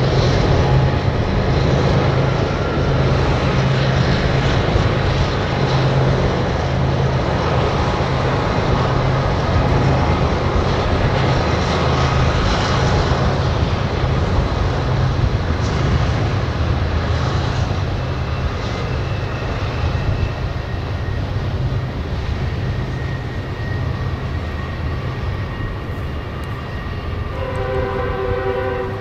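Several Union Pacific diesel locomotives pulling a long double-stack container train: a steady low engine drone with rumbling rail noise, slowly getting quieter. Near the end a multi-note train horn sounds briefly.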